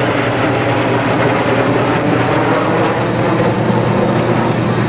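Steady, loud jet engine noise from a formation of Aero L-39 Albatros jets and a MiG-17 flying overhead.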